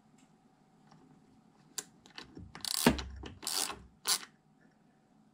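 A hand driver tightening the clamp bolt under a bench grinder's home-made tool rest bracket: a couple of light clicks, then three short scraping turns between about two and four seconds in, the loudest near three seconds.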